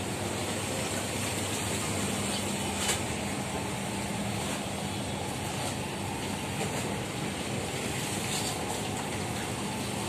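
Steady machinery rumble and hiss aboard a river passenger launch, with a low hum that comes in about two seconds in.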